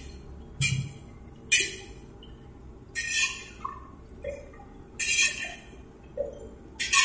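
A long metal skimmer stirring and scraping batter-coated tofu balls in a wok of hot oil: about five short scraping strokes, a second or two apart.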